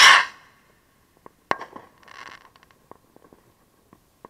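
A firework launching with a short, loud whoosh, followed about a second and a half later by a single sharp bang, a brief hiss and scattered faint crackles.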